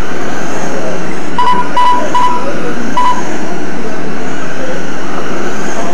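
Steady, loud noise of radio-controlled Slash trucks racing on a dirt oval. Four short, high electronic beeps sound between about one and a half and three seconds in.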